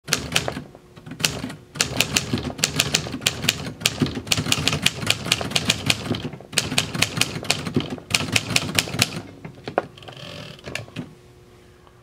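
A 1957 Remington Quiet Riter manual portable typewriter being typed on: quick runs of typebar strikes with short gaps between words. The strikes thin out to a few scattered clicks about nine seconds in.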